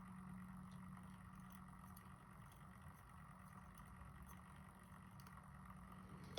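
Near silence: steady low hum of room tone, with a few very faint small ticks.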